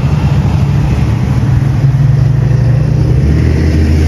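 Engine of a nearby motor vehicle running steadily over road traffic noise, its low tone shifting lower and stronger about three seconds in.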